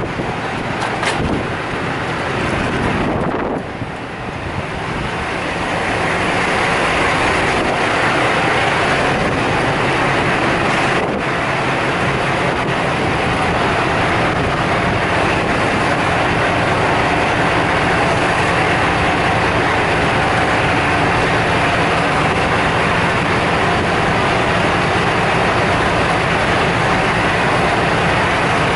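A heavy engine running steadily, with a continuous drone that gets louder about five seconds in and then holds.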